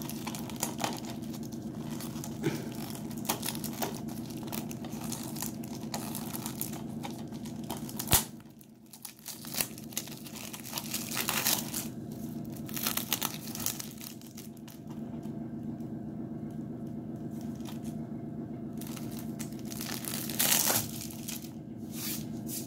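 Cellophane shrink-wrap being torn and peeled off a DVD case, crinkling on and off, with louder rustles now and then and a sharp click about eight seconds in.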